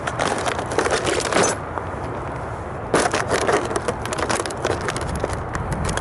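Cardboard display box and its clear plastic window crackling and crunching under a sneaker's weight, as a foot presses down on the boxed 1:18 die-cast Ferrari model. It comes in two spells of crackling, the second starting about three seconds in.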